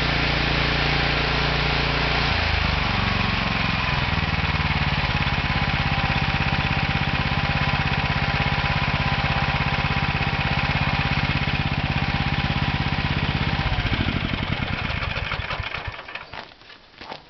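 ZLST 1101 Q tracked snow thrower's petrol engine running steadily; a couple of seconds in, its speed drops and settles at a lower, steady pace. Near the end the engine is shut off and dies away over about two seconds, and a few soft knocks follow.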